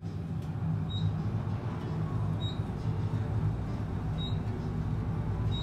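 Steady low rumble of city traffic, with a short high chirp repeating about every second and a half.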